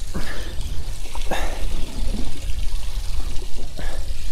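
Water slapping and lapping against the hull of a small drifting boat, a few splashes over a steady low rumble.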